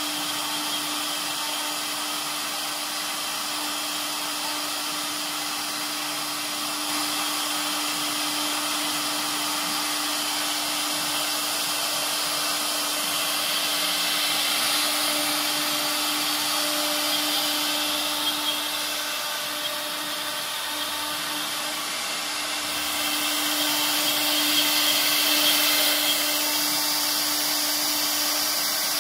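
CNC router spindle running with its bit engraving a wood board: a steady hum under a rushing cutting noise that grows louder in places.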